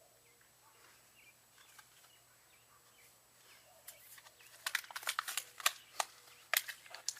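Faint chirps at first, then from about four seconds in a quick, irregular run of sharp clicks and light knocks from tools and faucet parts being handled.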